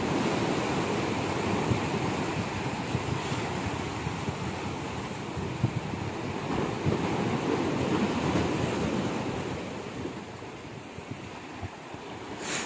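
Sea waves washing and splashing against the concrete tetrapods of a breakwater, with wind buffeting the microphone; the surf eases after about nine seconds. A brief sharp click near the end.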